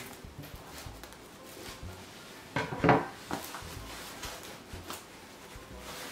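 Cardboard mailer being cut at with scissors and handled: scattered scrapes, rustles and clicks, with a louder burst of scraping and clatter about three seconds in.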